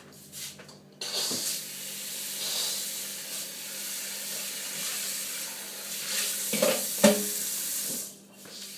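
Kitchen tap running water into a sink, turned on about a second in and off near the end, with a couple of knocks against the sink shortly before it stops.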